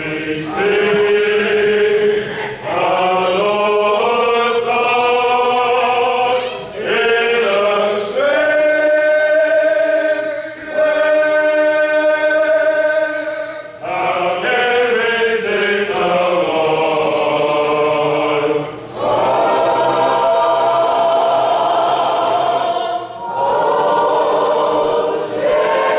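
Mixed choir of men and women singing, long held chords in phrases of a few seconds each, with short breaks between the phrases.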